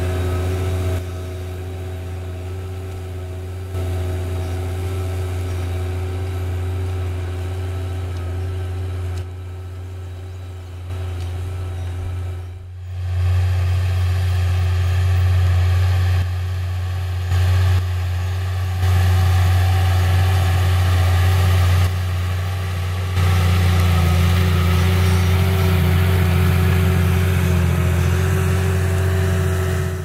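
New Holland T6.130 tractor's diesel engine running steadily under load while pulling a Baldan 24-disc offset harrow, a low steady drone. Its loudness jumps up and down several times, with a short dip about halfway through.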